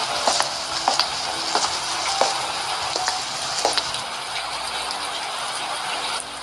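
Rain sound effect: a steady hiss of heavy rain with scattered sharp drips and splashes.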